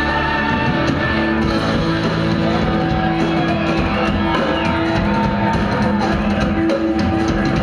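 Live rock band playing loud, with a strummed acoustic guitar and drums.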